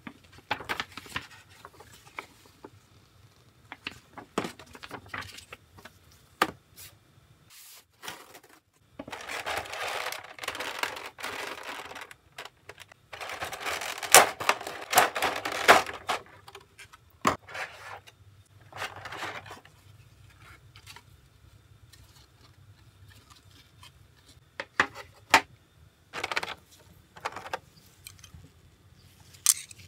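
Gloved hands handling packaging: a paper instruction booklet and a clear plastic blister tray of model parts, giving scattered clicks and taps with two longer spells of crinkling, each about three seconds, starting about nine and thirteen seconds in.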